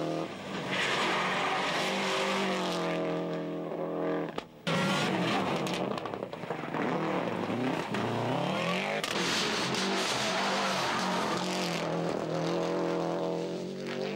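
Subaru Impreza rally cars' turbocharged flat-four engines at full throttle as the cars race past, the engine note rising and falling through gear changes and lifts. There is a sudden break about four and a half seconds in.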